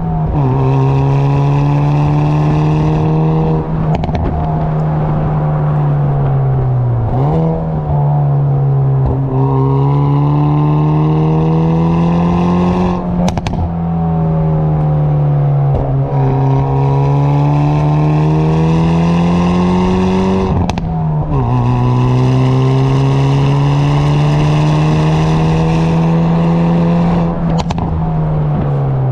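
Hyundai Veloster N's stock exhaust from its 2.0-litre turbocharged four-cylinder, heard from the rear of the moving car. The engine note climbs in pitch and falls back again and again as the car pulls and eases off, with a few short sharp cracks along the way.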